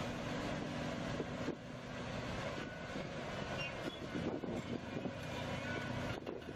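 Heavy machinery running steadily, with an engine-like drone and a few knocks.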